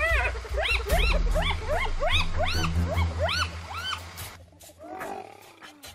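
Spotted hyenas giggling: a rapid series of short, high yelping calls, each rising and falling in pitch, over a low growling rumble. The calls stop about three and a half seconds in and the sound drops off.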